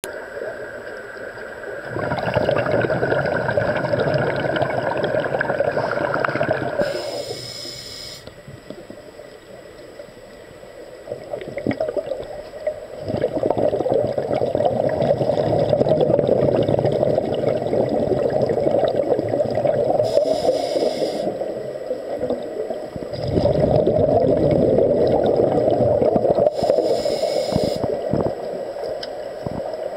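Air bubbling and gurgling underwater from an air-fed diving helmet, in long surges of several seconds with a quieter lull in between.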